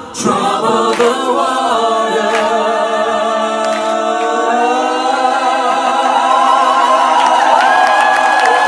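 Vocal ensemble singing a cappella in close harmony into microphones, holding long sustained chords after the band drops out at the start. A high voice rises above the chord near the end.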